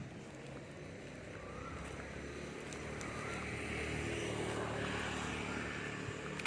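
A passing engine, growing louder to a peak about four to five seconds in and then fading, over a steady low hum. A few short bird chirps come through.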